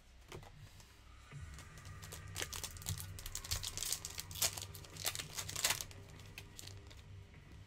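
A Japanese Pokémon card booster pack's foil wrapper being torn open and crinkled by hand: a busy run of crackling tears and rustles, thickest in the middle.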